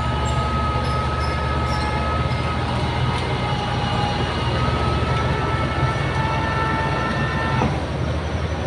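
Heavy diesel earthmoving machinery running under load, a steady low pulsing engine note with several high-pitched squealing tones over it from steel tracks or hydraulics; the squeals shift and mostly fall away near the end.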